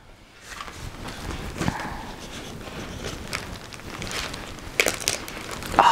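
Hands handling a cross-stitch kit on a wooden table: paper and plastic packaging around bundled embroidery threads rustling, with several light knocks.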